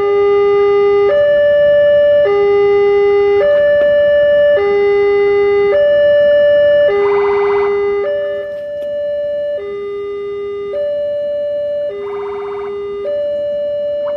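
Railway level-crossing warning alarm sounding a two-tone electronic hi-lo signal, each tone held about a second, warning that a rail vehicle is approaching. Short buzzing bursts sound over it twice, about seven and twelve seconds in.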